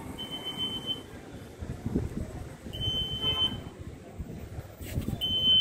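Walk-through security metal detector beeping: three steady, high single-tone beeps, each under a second long, about two and a half seconds apart.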